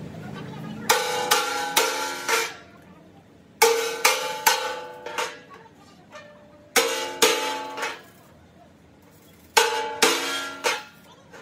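Hammer blows on steel, each one ringing out metallically, coming in four bursts of about four quick strikes with short pauses between.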